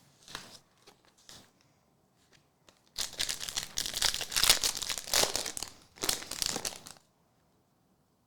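Foil trading card pack wrapper crinkling as it is torn open and handled, loud for about four seconds and then cut off abruptly. A few soft rustles come before it.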